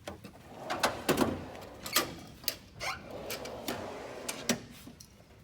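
Steel toolbox drawers rolling on their slides, with sharp metallic clicks and knocks as one drawer shuts and another opens. Two longer sliding runs come about a second in and around three seconds in.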